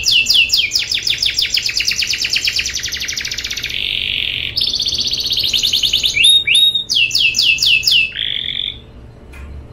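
Domestic canary singing a long rolling song: rapid trills of fast repeated notes, a buzzy trill in the middle, then a run of sweeping notes, stopping about a second before the end.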